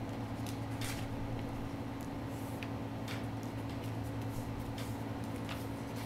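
Duct tape and a paper envelope crinkling and rustling in short scattered bursts as the tape is folded over and pressed down by hand, over a steady low hum.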